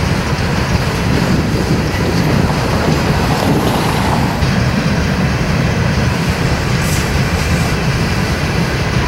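Freight train rolling past with a steady, loud rumble of cars on the rails.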